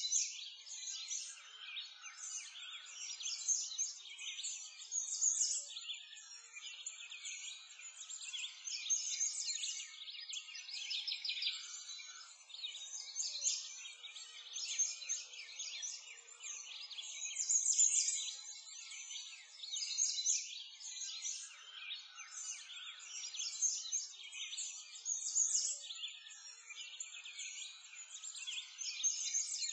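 Many birds chirping and singing over one another in a continuous high-pitched chorus, with nothing low beneath it.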